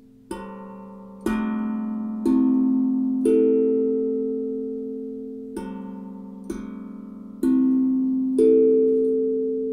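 Steel tongue drum played with the fingertips: eight notes struck roughly a second apart, each ringing on and slowly fading so that they overlap, with a gap of about two seconds midway.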